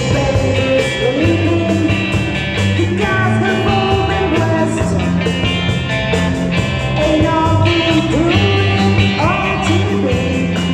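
A rock band playing the song live: steady drum beat, stepping bass line and a lead melody that slides up in pitch several times near the end.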